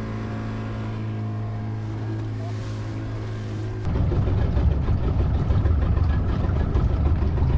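Outboard motor of a small aluminium boat running steadily at cruising speed. About four seconds in this cuts off suddenly and gives way to a louder, rough low rumble of wind buffeting the microphone.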